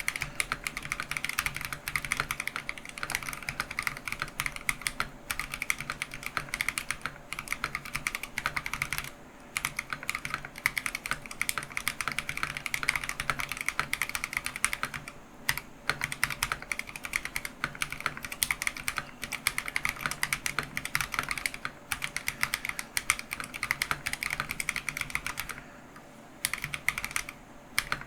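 Keychron V1 mechanical keyboard with lubed Akko Matcha Green switches being typed on in fast, continuous keystrokes. The typing stops briefly about a third of the way in, again around halfway, and near the end.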